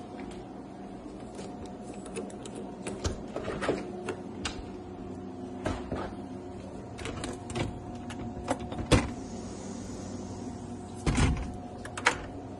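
Scattered clicks, knocks and rattles of a door being unlatched and opened and a storm door's latch handle being handled, with a couple of louder knocks in the second half, over a steady hum.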